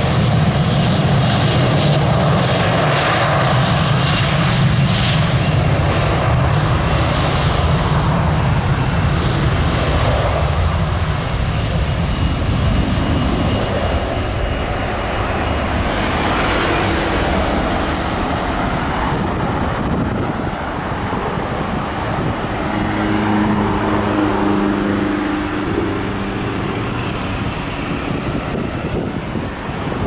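Boeing 737 Classic's CFM56 turbofan engines at takeoff thrust during the takeoff roll and liftoff: a loud, continuous jet rumble and roar that eases slightly as the aircraft moves away.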